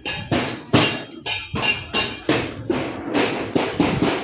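Steady rhythm of sharp knocks, about two or three a second.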